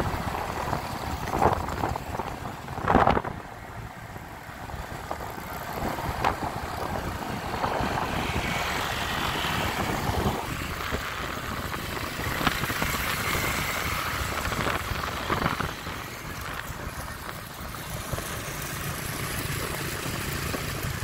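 Motorbike running along a town street in traffic: steady engine and road noise from the ridden bike, with other motorbikes passing close by. Two brief louder noises come about one and a half and three seconds in.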